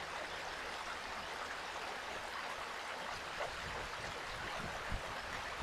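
Small woodland stream cascading over rocks and flowing between split boulders, a steady rushing of water. A soft low thump near the end.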